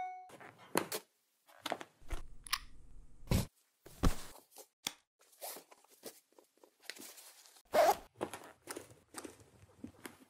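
A string of short, irregular rustles, soft thuds and clicks as a person moves about and handles cloth and small objects, with one louder knock nearly eight seconds in.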